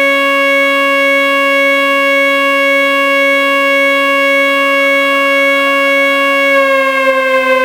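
Whelen WPS-2908 electronic outdoor warning siren sounding its steady alert tone: one loud held pitch that starts to slide down near the end as the tone winds down.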